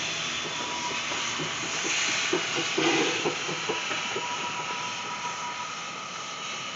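A two-foot-gauge train rolling slowly past: freight cars clicking and knocking over the rail joints, strongest two to four seconds in, with steam hissing from the steam locomotive Bridgton & Saco River #7.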